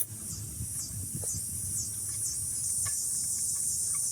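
Steady high-pitched chirring of insects, with a sharp click right at the start and a few faint clicks and knocks of parts being handled.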